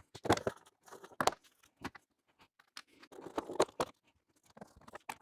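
Scattered clicks, small knocks and rustles of plastic seat trim covers being pried and pulled off their clips, with a denser run of clicks about three seconds in.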